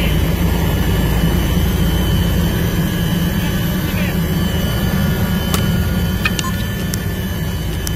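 Helicopter engine and rotor running steadily, heard from inside the cabin as a loud low rumble with a thin steady whine above it. A few sharp clicks come in the second half.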